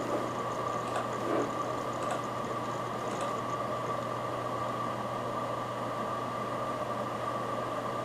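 Seagate FreeAgent Desktop external hard drive running: a steady high whine over a low hum, with a few faint ticks in the first three seconds.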